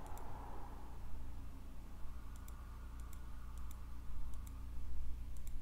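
Scattered sharp clicks at a computer, often in quick pairs, over a low steady hum.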